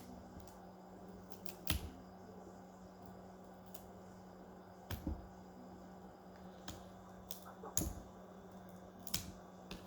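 Sharp isolated clicks and taps, a few seconds apart, over a steady low electrical hum.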